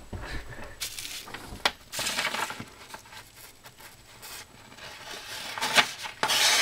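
A sheet of paper rustling and crinkling as it is handled, then a loud, papery hiss near the end as a Kershaw Turbulence folding knife's mirror-polished edge slices through it.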